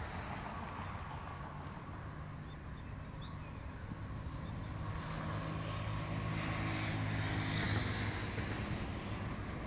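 Diesel engines of approaching Ferromex GE ES44AC locomotives, a steady low drone that grows louder from about halfway through, over a haze of street traffic.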